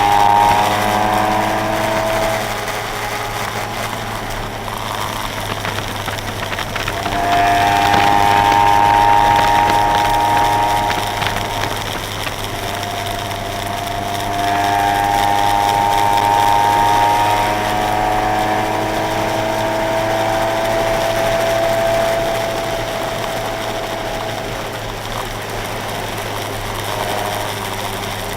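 Car engine pulling hard through the revs at track pace, its pitch climbing in several long sweeps and falling away between them, over a steady low hum.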